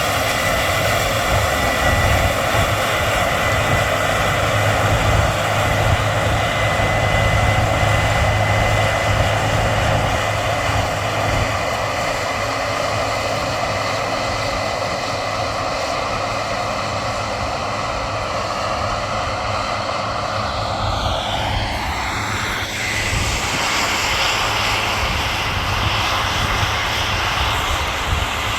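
Combine harvester running steadily in the soybean field, its engine and machinery whining with several steady tones. A little past two-thirds of the way through, the whine dips in pitch and climbs back.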